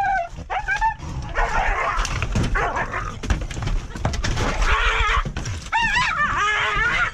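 An aggressive dog barking and yelping over and over as it is cornered and caught, the calls short, high and wavering, with harsher noisy stretches between them.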